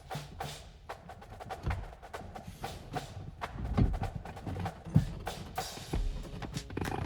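Background music with a percussive, knocking beat.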